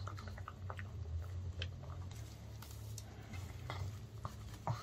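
Pug licking its lips and chewing, with soft wet smacks and small clicks scattered throughout over a steady low hum. Near the end it bites into a piece of baked chicken, with a louder click just before the finish.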